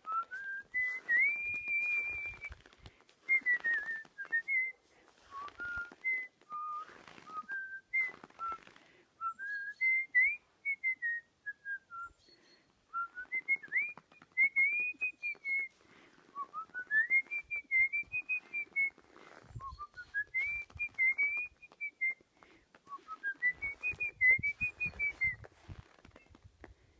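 A person whistling a melody by mouth (artistic whistling): a clear single tone in phrases that rise and fall in arcs, each lasting one to two seconds, with a few low thumps in the later part.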